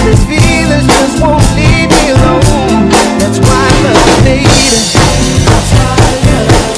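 Drum kit played along with a recorded song: a steady beat of bass drum, snare and toms with cymbals, over the band's music.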